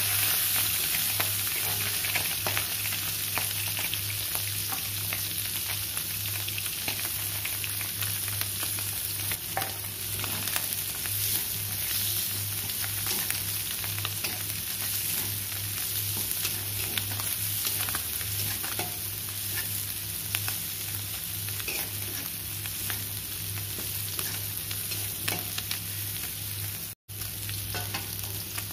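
Oil sizzling in an aluminium wok as fish pieces and chopped aromatics are stir-fried, with a metal spatula scraping and clicking against the pan. A steady low hum runs underneath, and the sound cuts out for a moment near the end.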